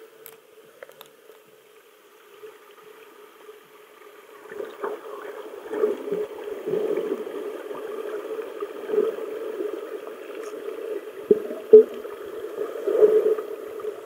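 Water churning and splashing, heard muffled, swelling about four seconds in, with two sharp knocks a little before the end.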